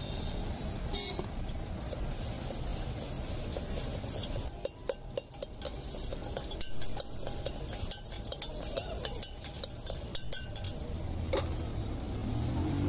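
Long steel spoon clinking rapidly against the inside of a stainless-steel tin as puffed rice is tossed with spices to mix jhal muri. It is a run of quick clinks lasting several seconds, with a single sharper clank about a second in and another near the end.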